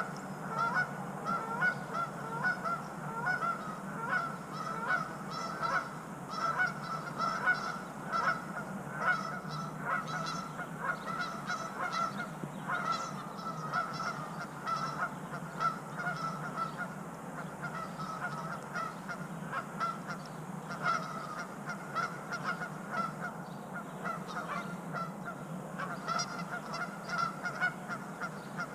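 Geese honking, short calls repeated over and over, with a steady low hum underneath.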